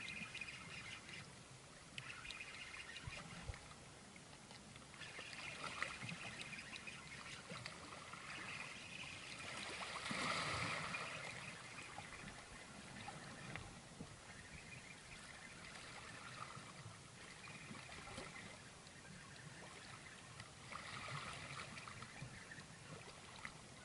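Abu Garcia Soron STX 40 spinning reel whirring faintly in repeated bouts as line is wound in, over a low wash of water. A louder swell of noise rises and fades about ten seconds in.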